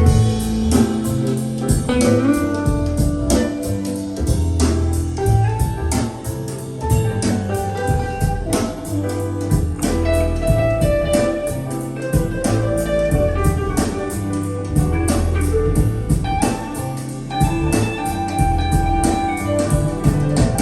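Music played back through KEF LS50 Meta bookshelf speakers with two subwoofers: a guitar-led track with prominent bass notes and a steady drum beat.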